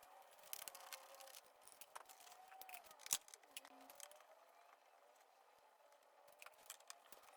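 Faint, scattered clicks and taps of hand work on a motorcycle's plastic fairing and windscreen fasteners, with one sharper click about three seconds in.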